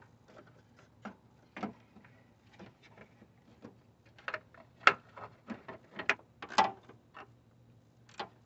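Irregular knocks and clicks of a plastic radiator cooling-fan shroud being worked down into its guides, the loudest a little past the middle.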